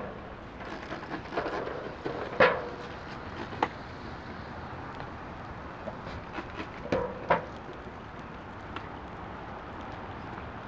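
Water squirted onto a hot steel griddle under an upside-down aluminium foil pan, sizzling and steaming to cook eggs over easy, with a few sharp clicks, the loudest about two and a half seconds in and a pair about seven seconds in.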